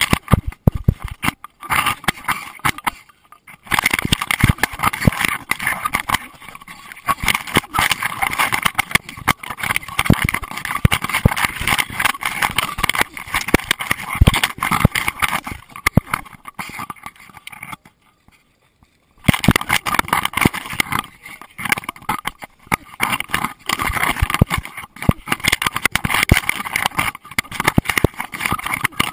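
Scraping, rubbing and knocking of a dog-mounted GoPro Hero2 in its waterproof housing as the dog moves over sand and along the creek. It drops out briefly about three seconds in and again for about a second near eighteen seconds.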